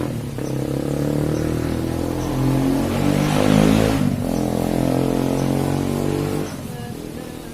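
A motor vehicle engine running, swelling to its loudest about three and a half seconds in, then dropping off sharply near the end.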